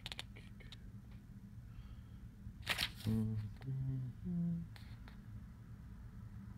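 Light paper clicks and a short rustle as pages of a small paperback booklet are handled and turned, then three short hummed notes, each higher than the one before: a woman humming to herself while she searches the page.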